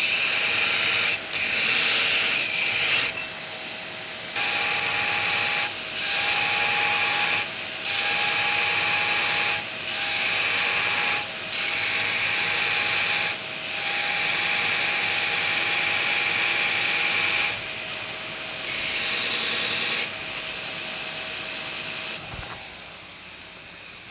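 Belt grinder hogging steel off a Damascus-clad san mai billet pressed against a worn belt on the contact wheel. There are nine passes of harsh grinding hiss, each one to four seconds long. Between them only the grinder's steady running hum is heard, and that fades near the end.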